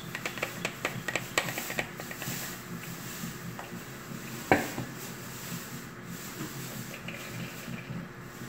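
A stainless steel bowl pressing and scraping soaked bulgur wheat in a plastic strainer, with a quick run of clicks and scrapes, to squeeze out the excess water. A single loud knock comes about four and a half seconds in. Softer rubbing follows as the wet wheat is pressed by hand.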